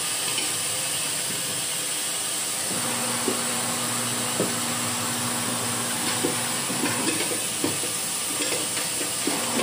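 Tyre-changer machine at work: a steady hiss, with a low hum coming in about three seconds in and scattered clicks and knocks after that.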